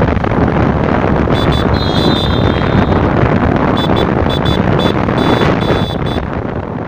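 Wind buffeting the microphone of a moving road vehicle, mixed with engine and traffic noise. It is loud and steady and fades out near the end. A thin high-pitched tone sounds about two seconds in, then beeps on and off several times between about four and six seconds.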